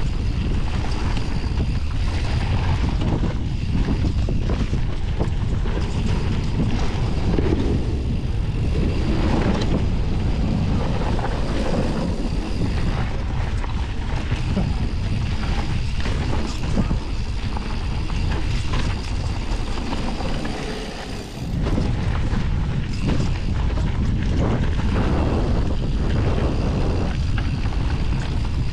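Mountain bike descending a rough bike-park trail at speed: wind buffeting the rider's camera microphone over tyres and frame rattling on the dirt. It goes briefly quieter about three-quarters of the way through.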